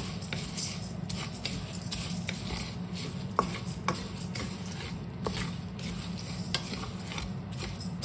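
A wooden spatula stirs raw glutinous rice and kaffir lime leaves in a dry pan. The grains rattle and hiss with repeated scrapes, a few sharper clicks of the spatula against the pan, and a steady low hum underneath. This is sticky rice being dry-toasted for khao khua, toasted rice powder.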